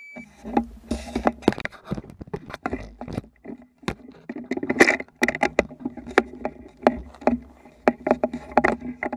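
A short electronic beep at the very start, typical of a shot timer. It is followed by close, irregular handling noise, with rubbing, scraping and many clicks and knocks, as a rifle and gear are moved into a shooting position.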